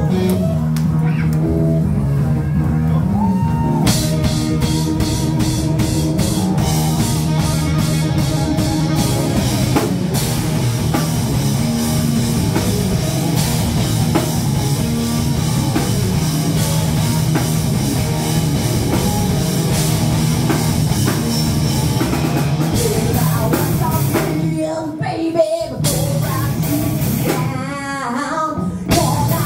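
Live rock band playing loud: electric guitar, bass guitar and drum kit with vocals. Near the end the band drops back briefly twice, leaving a wavering sung line.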